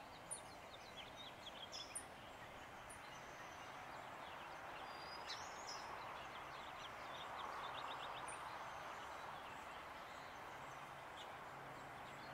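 Faint bird chirps and twittering: short high notes and quick runs of notes scattered throughout, over a steady hiss of outdoor background noise.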